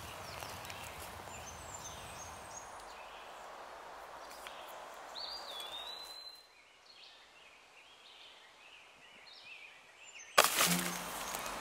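Woodland ambience: a steady hiss with scattered bird calls, including a clear whistled note about five seconds in, growing fainter about halfway through. Music cuts in abruptly near the end.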